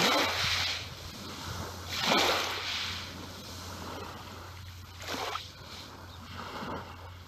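Small waves lapping onto a pebbly beach, each one washing in and drawing back with a fizzing rush over the stones. There are about four washes: the loudest right at the start and about two seconds in, and smaller ones later.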